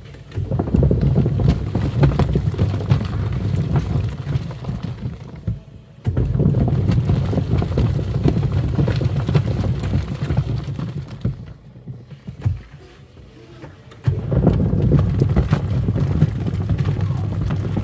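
Twin-tub washing machine's wash tub agitating foamy water with plastic toy animals inside: the motor and churning water run in spells of about five seconds, with short pauses between them as the agitator stops and reverses.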